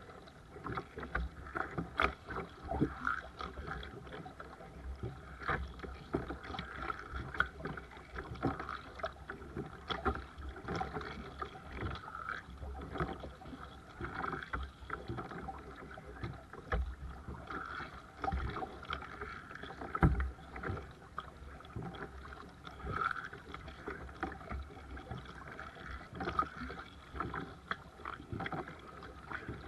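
Seabird Discovery kayak being paddled: paddle blades dipping in and water splashing and dripping, stroke after stroke about once a second.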